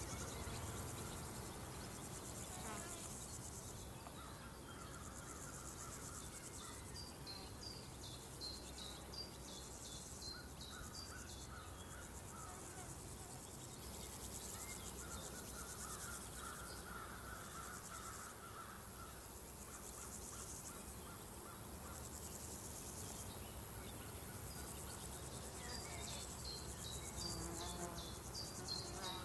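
Countryside insect chorus of crickets as a steady high trill, joined by a louder high buzzing layer for about eleven seconds in the middle. Two runs of quick, short bird chirps sound over it, one about a quarter of the way in and one near the end.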